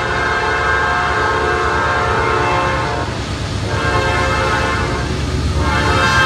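Approaching Norfolk Southern diesel freight locomotive sounding its multi-note air horn, held in long blasts with brief breaks about 3 s and 5 s in, over a low rumble of the train that grows near the end.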